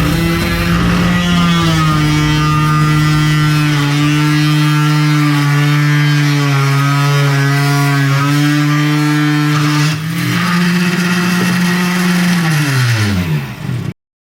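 Small electric motor of a homemade 3D-printed mini drill spinning up, running with a steady whine, dipping briefly about ten seconds in, then winding down to a stop.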